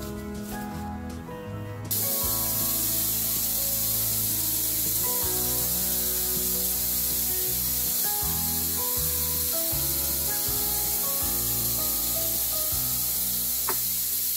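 A kitchen tap running in a steady stream into a plastic bowl of lettuce and herbs in a sink, starting about two seconds in, as the leaves are washed. Background music plays throughout.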